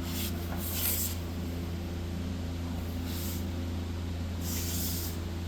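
Bridgeport step-pulley milling head driven by a Dayton 2 HP single-phase motor, running with a steady hum. Four short bursts of hiss come and go over it.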